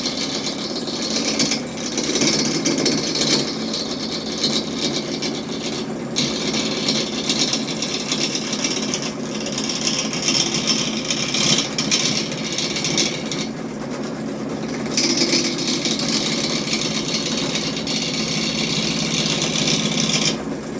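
A Harbor Freight lathe's motor running steadily while a tool cuts into a spinning piece of oak firewood. The hiss of the cut comes and goes as the tool is fed in and eased off.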